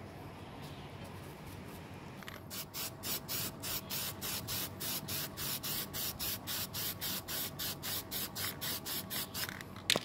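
Aerosol spray can of flat black paint hissing in a rapid pulsing rhythm, about four pulses a second, as a coat goes on; it starts about two seconds in and stops just before a sharp click at the very end.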